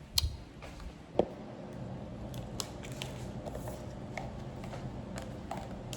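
Handling sounds from objects being picked up and moved: two sharp clicks near the start, then scattered light ticks and knocks over a steady low room hum.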